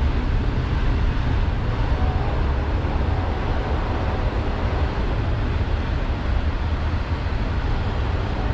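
Steady low rumble of a passing train.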